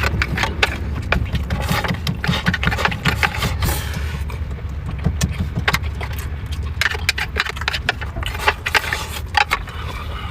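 Eating from an old metal lunchbox: irregular sharp clinks and scrapes of utensils against the box, over a steady low rumble.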